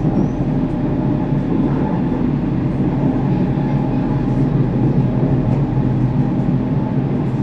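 Helsinki metro train heard from inside the carriage while running at speed: a steady rumble of wheels and running gear with an even low hum.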